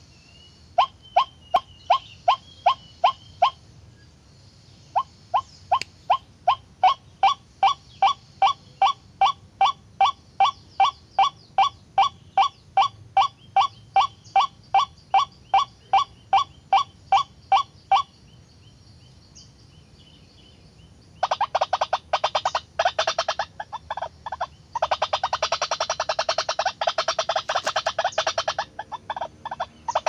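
White-breasted waterhen calling: a long series of evenly repeated 'ruak' notes, about two a second, broken by a couple of short pauses. Near the end it turns to a denser, harsher chattering run of rapid notes.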